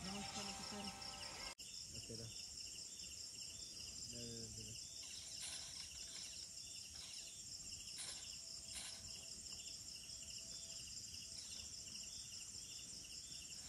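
Jungle insects, crickets and cicada-like callers, chorusing: a steady high shrill with a rhythmic chirping beneath it, repeating a couple of times a second.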